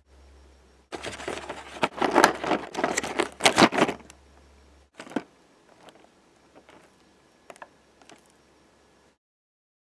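Cardboard advent calendar door being pried and torn open: a dense run of crackling and crinkling for about three seconds, then a few scattered clicks and crinkles before it falls silent near the end.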